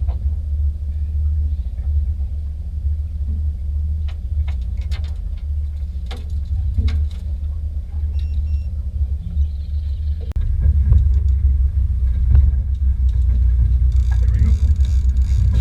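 Fishing boat's engine rumbling steadily, getting louder about ten seconds in, with a few light knocks over it.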